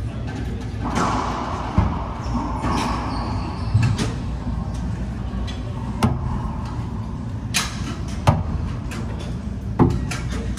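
Doubles racquetball rally: the ball hitting racquets and court walls as sharp, irregular pops, about seven in all, over a steady low hum.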